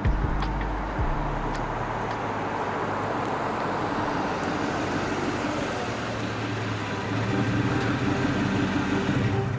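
A car driving past: a steady hiss of tyres on the road with a low engine hum, a little louder near the end.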